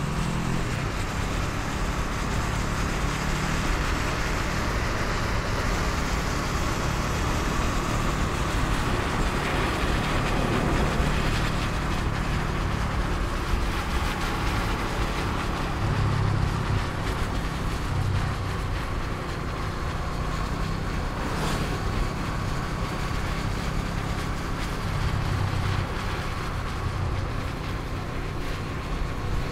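Honda CBR500R's parallel-twin engine running as the motorcycle is ridden along, a steady engine and road sound with no clear rise or fall.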